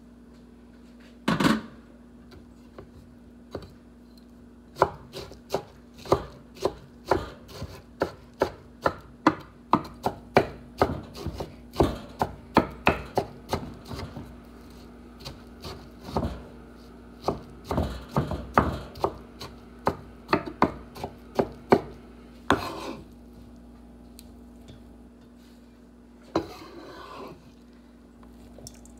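Chef's knife chopping pumpkin on a wooden cutting board: a long run of sharp knocks, about two to three a second, with a louder single knock about a second in and a brief scrape near the end.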